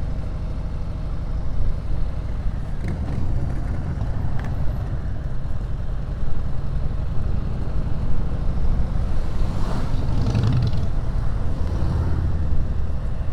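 Harley-Davidson Sport Glide's Milwaukee-Eight V-twin running through an aftermarket Screamin' Eagle exhaust on the move, with a steady low beat; it swells louder about ten seconds in.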